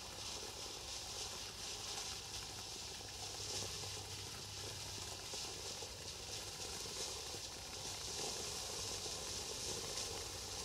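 Bright Star Volcanic Meltdown cone firework fountain burning, a steady hiss as it sprays sparks.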